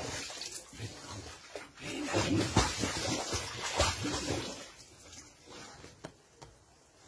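A dog splashing and paddling in pool water, with irregular splashes and sloshing that are busiest in the middle and die down near the end.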